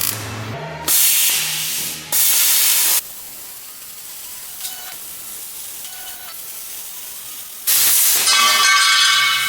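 Three bursts of loud, steady hissing from metalworking on the van's step steel. The first two are short and close together, and the last, longer one starts late and carries a faint whine.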